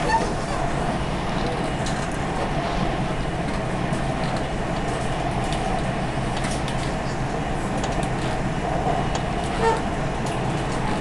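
Dubai Metro train running at speed on elevated track, heard from inside the carriage: a steady rumble and rush of wheels on rail and air, with a brief higher-pitched squeak near the end.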